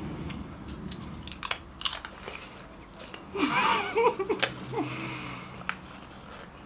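A nacho cheese Pringles crisp being bitten and chewed: several sharp crunches. A short burst of voice and noise comes about halfway through.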